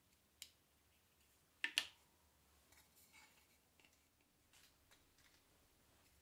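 Small switch on the laser marker's wire clicking: one click, then a louder quick pair of clicks, followed by faint taps and rustles of handling small wooden pieces.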